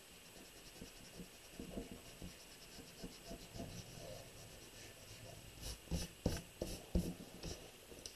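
Pencil eraser rubbing back and forth on paper in quick, even strokes, lifting leftover pencil lines. A few louder knocks near the end as the paper and pencil are handled.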